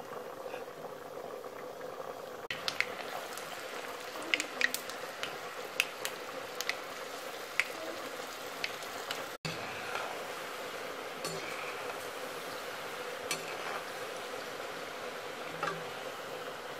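Chegodilu, rings of rice-flour dough coated with soaked chana dal, deep-frying in hot oil: a steady sizzle with scattered sharp pops and crackles.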